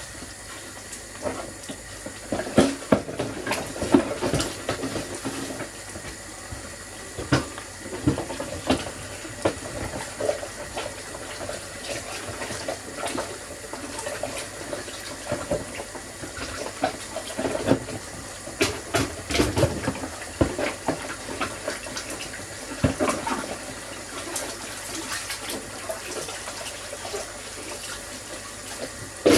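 Chicken curry simmering in a cast-iron Dutch oven: the sauce bubbles and sizzles steadily, with irregular pops and crackles throughout.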